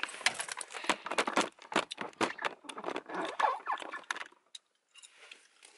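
Handling noise from the phone recording close-up as it rubs and knocks against a fleece jacket: a dense run of small clicks, scrapes and rustles that stops about four seconds in.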